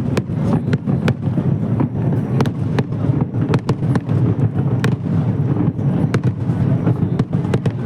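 Fireworks display: a dense, continuous rumble of bursts with many sharp cracks, several a second.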